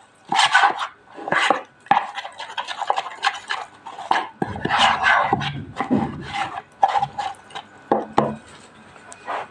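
A spoon scraping and knocking against a bowl while stirring a thick mixture of honey, tahini and olive oil: irregular clicks and scrapes throughout.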